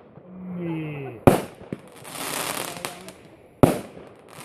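Fireworks shells bursting: a sharp bang about a second in, followed by about a second of crackling, then a second sharp bang near the end.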